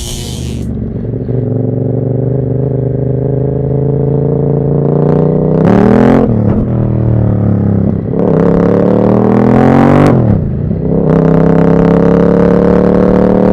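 Moto Morini Corsaro 1200 Veloce's V-twin engine through a Termignoni exhaust, pulling under acceleration. Its pitch rises steadily and falls sharply twice, about six and ten and a half seconds in, as it shifts up through the gears.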